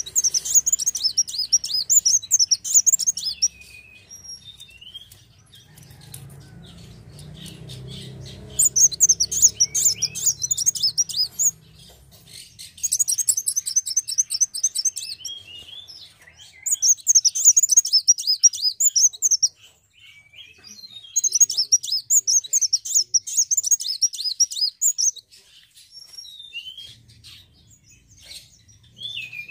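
A kolibri wulung sunbird singing: five runs of fast, high, rapid-fire twittering, each about three to four seconds long, with short lower chips between them.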